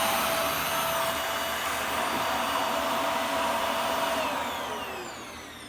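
Hoover Air Steerable bagless upright vacuum running with a steady motor whine, pretty quiet for a vacuum. About four seconds in it is switched off and the motor winds down, its pitch falling away.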